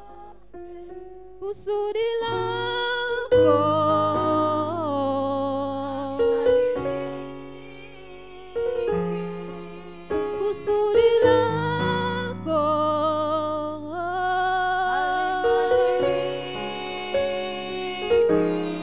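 Women singing a slow worship song through a microphone, the lead voice holding long notes with vibrato, over held chords from an accompanying instrument.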